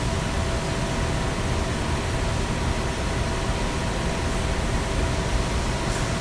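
Steady mechanical rushing noise with a low rumble, the background drone of a machine shop, with a couple of faint steady hum tones running through it.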